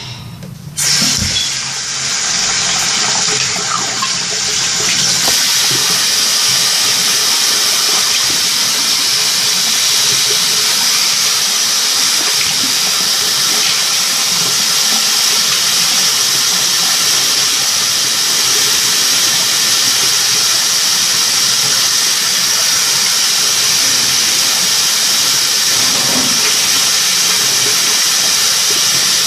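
Water running steadily from a tap: a loud, even hiss that starts suddenly about a second in.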